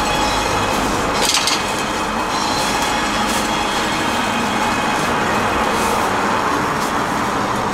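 Steady hiss and rumble of a busy street food stall, with two short louder hisses early on.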